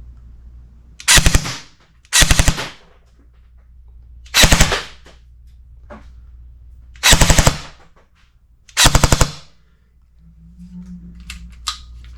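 Battery-powered airsoft electric gun (Zion Arms PW9 Mod 1) firing five short full-auto bursts, each a rapid rattle of shots about half a second long, at roughly 11.6 rounds a second.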